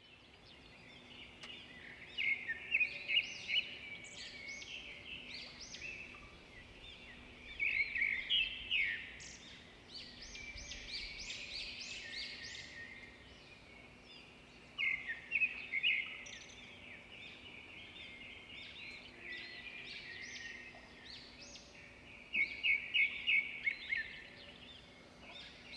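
Birds chirping and calling, with several bursts of rapid repeated notes, over a faint steady low hum.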